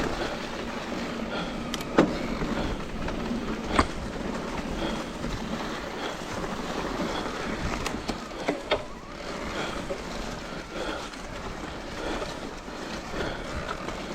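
Trek Rail electric mountain bike riding down a dirt trail: a steady rushing noise of tyres and rattle, with sharp knocks about two, four and eight and a half seconds in as it hits bumps.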